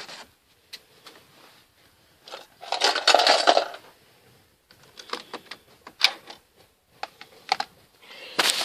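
Electrical plugs being pulled out of sockets and handled: scattered plastic clicks and clatter, with a louder rustling scrape about three seconds in.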